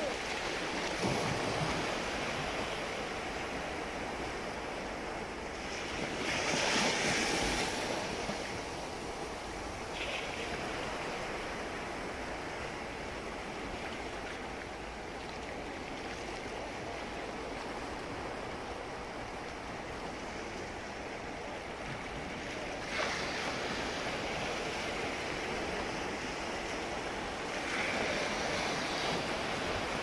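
Small Mediterranean waves breaking and washing onto the beach: a steady hiss of surf that swells louder about six seconds in, again around twenty-three seconds, and near the end.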